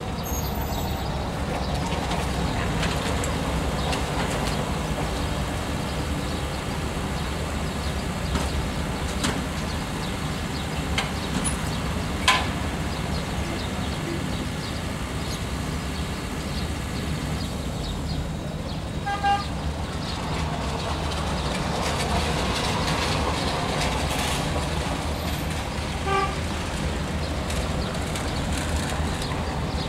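Steady low rumble of engines and traffic around the harbour. Short horn toots come about two-thirds of the way in, with another near the end.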